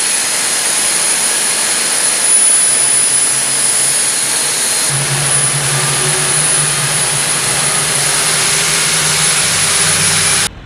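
F-22 Raptor's Pratt & Whitney F119 turbofan engines running on the ground: a steady high-pitched whine over a dense jet rush, with a low hum growing stronger about halfway through. The sound cuts off suddenly near the end.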